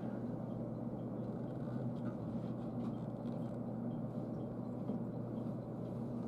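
Steady low hum inside a passenger train car standing still at a signal stop, its onboard equipment running.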